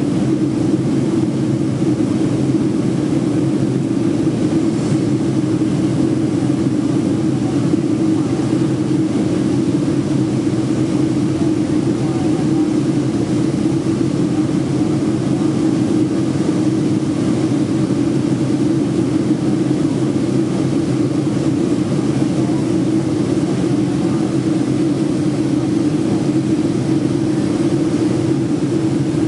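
Steady cabin noise inside a Boeing 757-200 in flight, heard from a window seat by the wing: the even drone of the jet engines and rushing air, a constant low hum that doesn't change.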